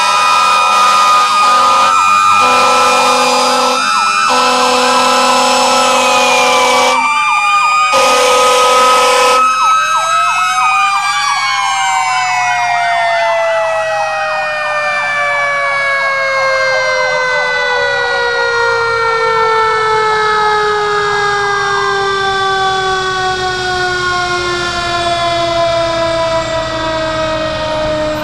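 Fire trucks sounding air horns and sirens: steady horn blasts with short breaks, two of them very loud, for about the first ten seconds. Then a mechanical siren winds down in one long, slowly falling tone, while other sirens rise and fall over it.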